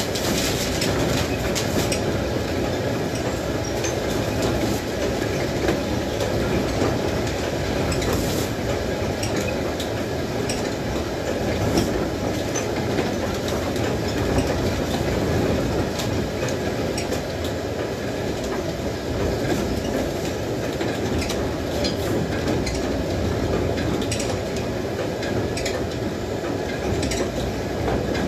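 A wind-driven corn mill's machinery running while milling: a steady rumble of the turning millstones and gearing, with a constant light clatter throughout.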